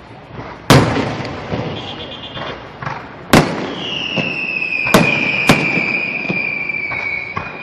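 Aerial fireworks display: loud, sharp shell bursts about a second in and then three more in the middle, with smaller pops between. From about halfway through, a long high whistle that slowly drops in pitch sounds over the bangs.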